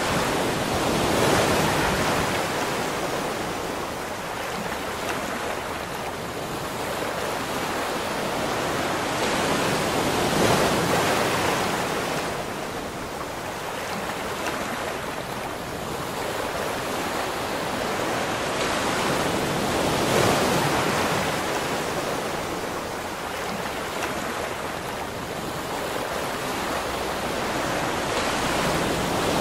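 Ocean surf breaking and washing up a sandy beach: a steady hiss that swells and fades about every five seconds as each wave comes in.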